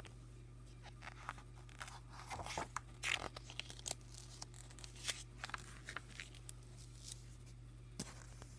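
Paper pages of a paperback graphic novel rustling and crackling as they are handled and a page is turned by hand, a string of small crackles and taps over a steady low hum.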